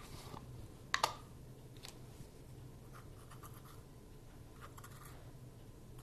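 Measuring spoon scooping and scraping in a small tin of baking soda: a light click about a second in, then faint scratching as the spoonful is scraped level.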